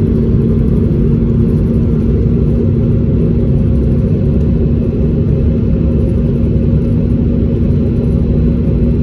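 Steady low rumble of an airliner's engines and airflow heard inside the cabin during the descent to landing, with a constant low hum running through it.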